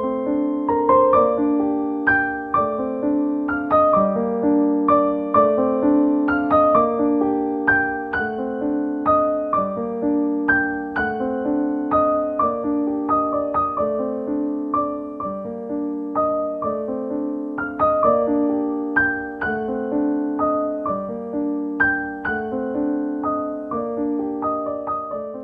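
Gentle background piano music: a steady stream of softly struck notes over a repeating lower figure.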